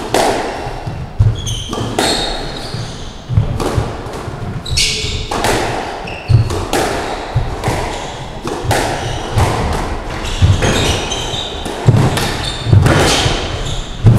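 A squash rally: the rubber ball cracking off the rackets and the court walls about once a second, each hit ringing in the enclosed court, with squash shoes squeaking on the wooden floor between shots.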